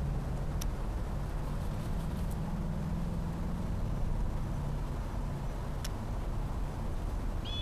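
Low rumble of road traffic, a passing car swelling and fading over a few seconds. A short, high bird chirp near the end.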